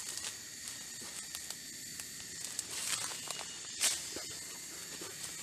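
A few short rustles and crackles of a plastic grafting strip being handled and wound around a coffee stem, the loudest a little under four seconds in, over a steady high hiss of insects.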